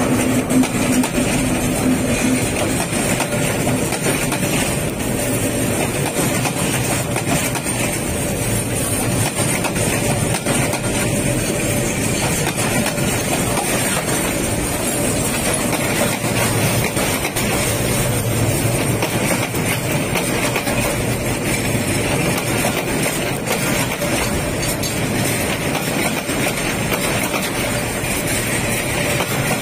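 Container freight train rolling past, the wagons' wheels running over the rails with a steady rumble and clatter. A diesel locomotive's engine hum is heard in the first two seconds or so.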